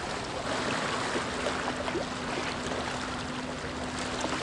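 Small sea waves washing and lapping around the rocks of a rock wall, a steady sloshing hiss. A faint, steady low hum joins about half a second in.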